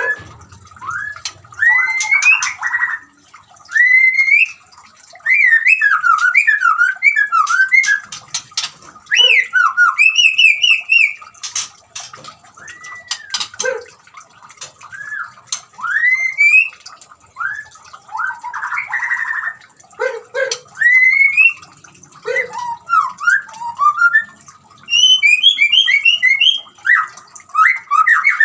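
White-rumped shama singing: a continuous run of varied whistled phrases of rising and falling glides, quick trills and a few harsher notes, over a faint steady trickle of water.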